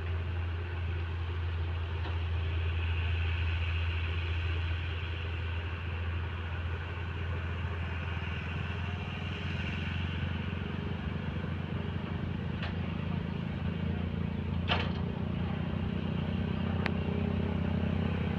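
Diesel engines of heavy earthmoving machinery, an excavator and a bulldozer, running steadily with a low drone that grows fuller about halfway through. A single sharp metallic clank comes about fifteen seconds in.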